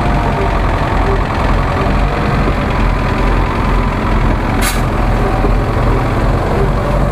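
Heavy off-road truck engine running steadily at low revs, with one short, sharp hiss about four and a half seconds in.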